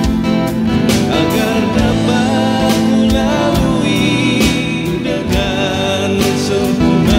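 Live band playing a slow song: acoustic guitar strumming over a steady beat on an electronic drum kit, with a voice singing the melody.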